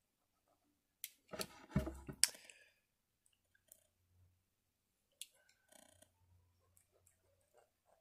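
A small hand file and a small hard-plastic action figure being handled, with clicks, a cluster of knocks and a loud bump about two seconds in. Light, short scraping strokes follow as the file smooths chunks off the figure's nose.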